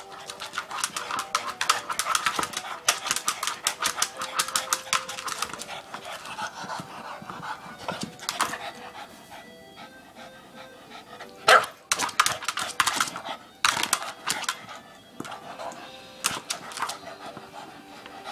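Boston terrier panting hard and scrabbling at a large plastic ball: a fast, dense run of sharp clicks and scrapes for the first several seconds, then sparser bursts, with a couple of louder sharp sounds a little past the middle.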